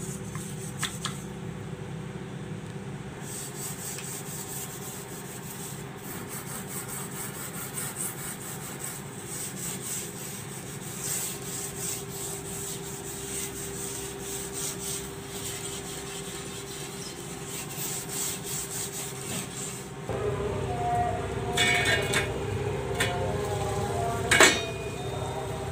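Cloth wiping and scrubbing a laminated wooden kitchen cabinet door in quick back-and-forth rubbing strokes. About 20 seconds in, this gives way to water boiling in a steel saucepan on a gas stove, with one sharp clink near the end.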